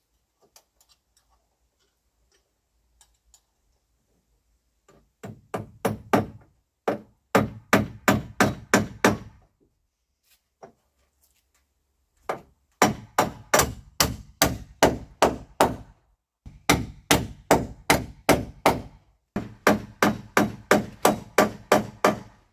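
Hammer driving nails into a wooden timber-frame joist joint, in five runs of quick strikes, about four a second, with short pauses between runs.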